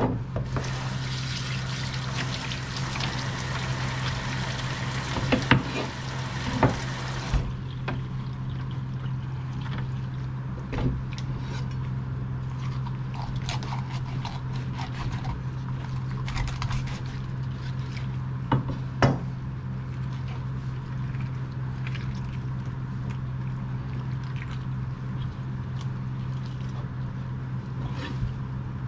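Tap water running into a steel kitchen sink for about seven seconds, then shutting off abruptly. After that come scattered clicks and knocks of a knife and fish on a wooden cutting board as a rockfish is gutted, over a steady low hum.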